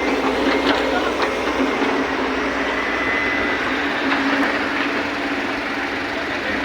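Excavator's diesel engine running steadily, with a few sharp clanks scattered through it.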